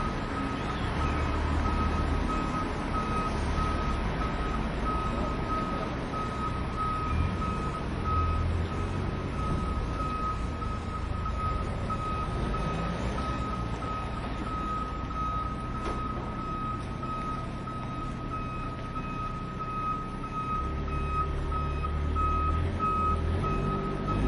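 Forklift reverse alarm beeping steadily at one high pitch, about two beeps a second, over the low rumble of the truck's engine.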